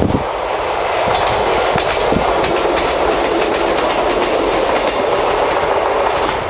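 Nagano Electric Railway train passing over the level crossing at close range: a steady loud run of wheels on rails with rapid clicking of wheels over the rail joints.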